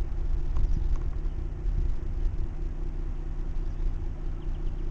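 Steady low rumble of a car driving: engine hum and road noise.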